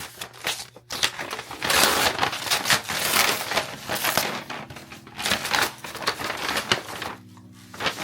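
Packaging being handled and opened, a rustling, crinkling noise in irregular bursts.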